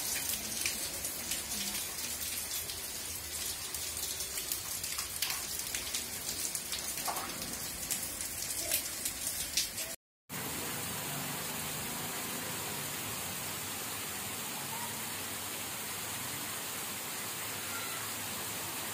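Heavy monsoon rain falling steadily. In the first half drops tick sharply against something close by; after a brief gap about halfway the downpour becomes an even hiss.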